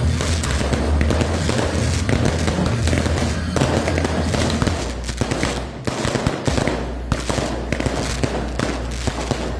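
Fireworks going off in a rapid, continuous string of sharp bangs and crackles, like machine-gun fire, with music playing underneath.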